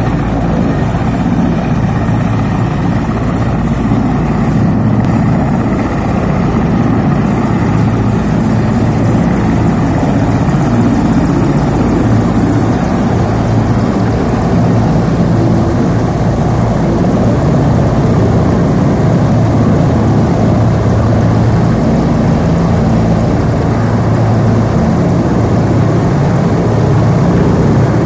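Helicopter running steadily and loudly close by, its engine and rotor making a continuous heavy drone.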